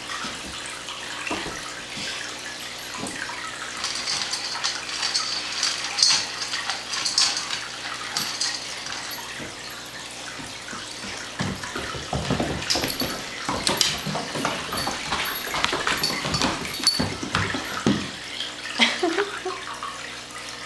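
A Doberman puppy moving about on a hardwood floor: clicking, scuffling and small knocks, busiest in the second half, over a steady hiss.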